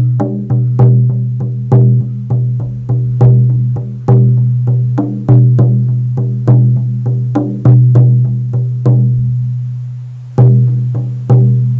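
16-inch buffalo-skin frame drum on an ash frame, struck with a firm beater in a steady rhythm of louder and lighter strokes, its low, deep tone ringing on between beats. The playing stops about nine seconds in, then two more strokes near the end ring out.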